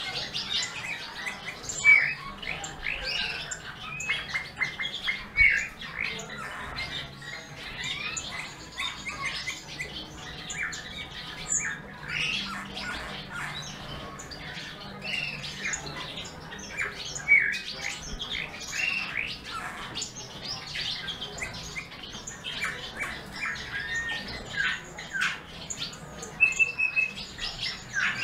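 Small songbirds chirping: a busy, continuous run of short, quick calls.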